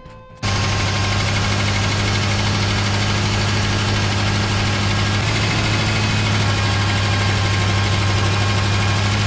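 1973 Ford F100's V8 engine idling steadily at a fairly high idle, as a freshly revived engine does while warming up after its first start-up. The pitch shifts slightly about five seconds in.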